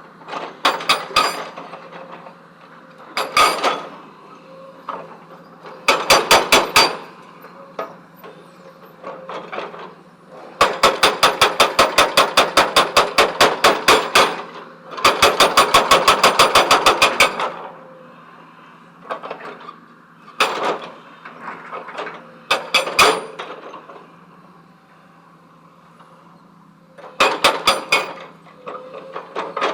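A hydraulic breaker on a CAT backhoe loader hammering stone in bursts of rapid blows, about eight a second. Most bursts are short, with two longer runs of a few seconds in the middle, over the machine's steady engine hum.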